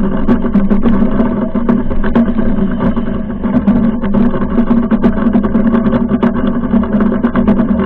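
Foiling Moth dinghy sailing at speed in strong wind: a loud, steady hum with several steady tones above it, over rushing wind and water, with many short ticks of spray.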